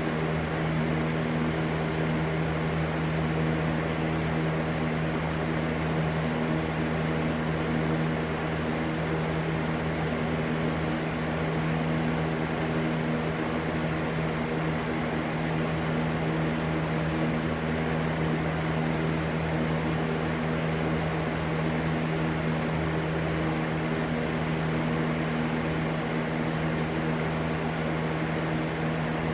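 Electric fan running steadily: an even rushing air noise over a constant low hum.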